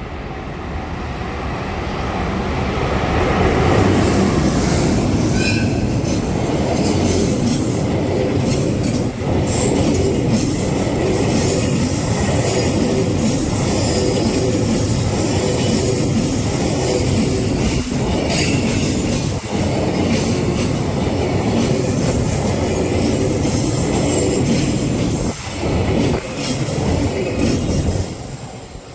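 Freight train hauled by an EH200 electric locomotive passing close by: the rumble builds over the first few seconds, then a long steady rolling clatter of wagon wheels on the rails, which drops away sharply near the end.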